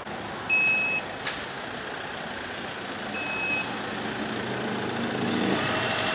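Ambulance van's engine running as it moves slowly through street traffic noise, growing louder toward the end. Over it a high electronic beep sounds twice, about half a second each and about two and a half seconds apart, the first the loudest, with a sharp click just after it.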